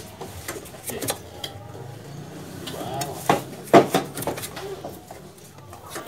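Sharp metallic clicks and clinks from work on a refrigerator compressor's copper tubing and wiring: a few light ones in the first second and a half, then two louder ones about three and a half seconds in.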